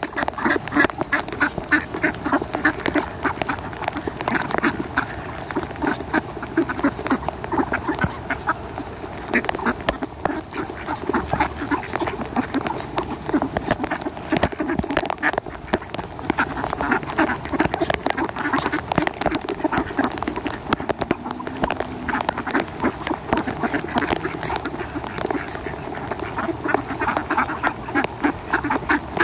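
A big flock of mallard ducks crowding close, quacking and chattering over one another without a break.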